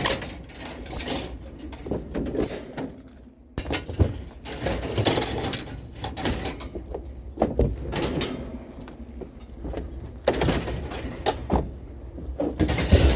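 Irregular knocks, clanks and rattles of scrap being handled and shifted around, with several sharper hits.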